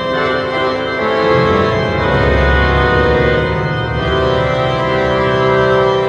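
St Paul's Cathedral pipe organ playing held, full chords. A deep bass note comes in about two seconds in.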